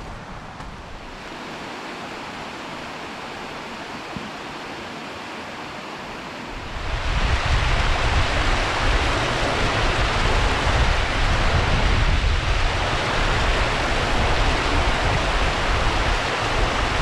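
Strong wind gusting over the microphone: a steady rush that swells about seven seconds in into a louder gust with heavy low buffeting.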